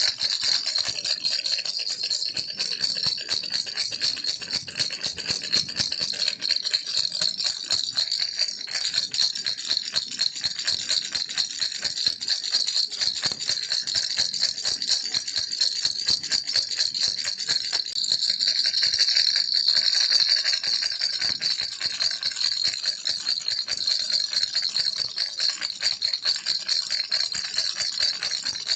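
Plastic baby rattle shaken continuously, a fast dense stream of small beads clicking inside it.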